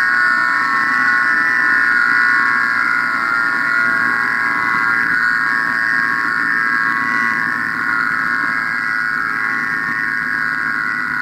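A steady drone of many held tones sounding together, slowly fading.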